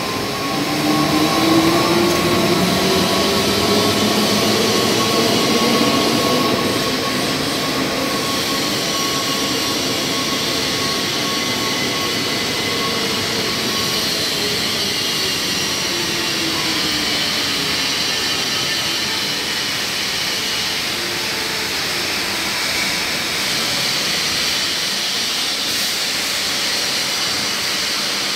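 ICM Makina Flex Pro 2800 S tissue-paper rewinder running, its rollers and paper web making a steady, loud whirring hiss. A motor whine rises in pitch over the first several seconds, then the machine runs on evenly as a paper log winds.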